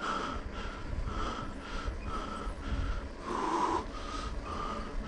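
A cyclist breathing hard and fast in rhythm while pedalling, with one heavier breath about three and a half seconds in, over wind rumble on the microphone.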